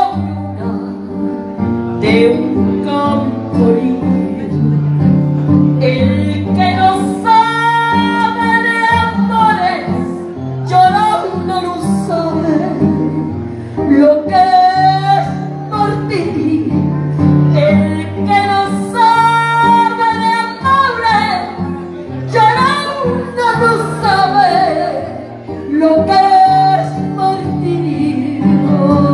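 A woman singing a Spanish-language song into a handheld microphone over a karaoke backing track with guitar, holding several long notes with vibrato.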